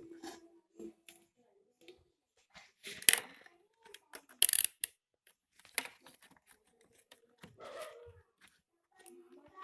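Handling noises as the home theater's wiring is checked: scattered short rustles and clicks, with two louder scratchy bursts about three and four and a half seconds in and smaller ones later.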